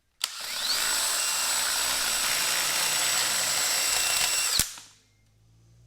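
Power grinding tool running at a steady high whine while it grinds a hole into a plastic radio bezel. It starts just after the beginning and cuts off suddenly about four and a half seconds in.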